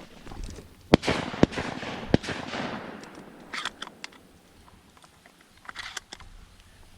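Three shotgun shots in quick succession, about half a second apart, starting about a second in, each trailing off in a short haze. Fainter clicks and pops follow a little later.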